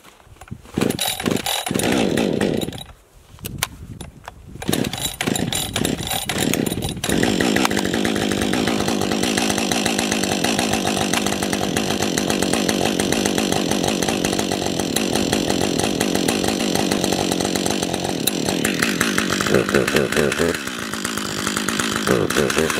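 Husqvarna 550 XP two-stroke chainsaw being pull-started on cold snow. It fires in short bursts over the first several seconds, catches about seven seconds in, and then runs steadily. Near the end it drops to a lower, quieter running.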